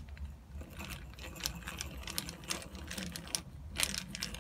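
Eggbeater-style hand drill being cranked, its gears whirring and clicking in a fast, uneven rattle as a 3 mm bit bores into the end grain of a wooden block. The clicking starts about half a second in.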